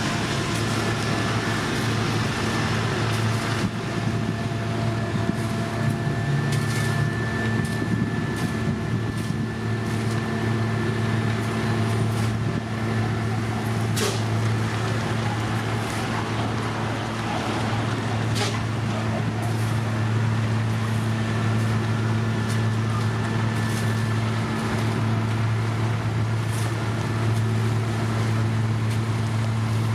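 Heavy road-paving machinery running steadily: a constant low engine hum with a faint high whine over it and a few sharp clicks, the clearest about halfway through.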